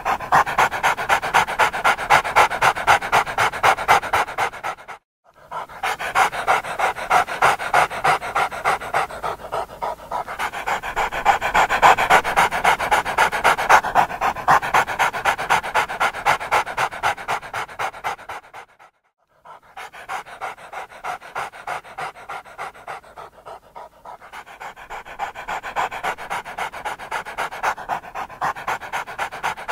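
A dog panting hard and fast, about three breaths a second, the panting breaking off twice for a moment.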